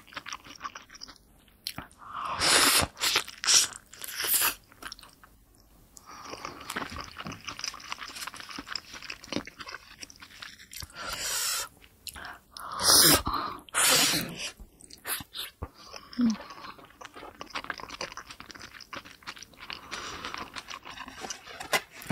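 Close-miked wet chewing of a big pork momo dumpling dipped in chilli sauce. Several louder bite sounds come about two to four seconds in and again around eleven to fifteen seconds in.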